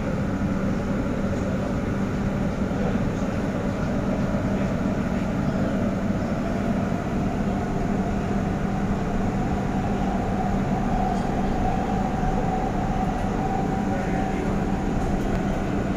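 Doha Metro train running between stations, heard from inside the passenger car: a steady noise of wheels and motors with a constant low hum. A faint higher whine comes up from about ten seconds in.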